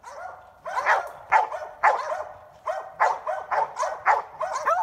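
Hunting dogs barking in quick succession, about two or three barks a second, baying at a wild boar.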